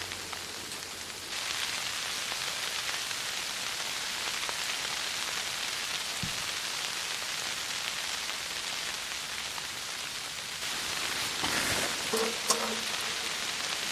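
Steady rain falling, an even hiss that gets a little louder about a second in. Near the end it swells, with a few faint knocks and one sharp click.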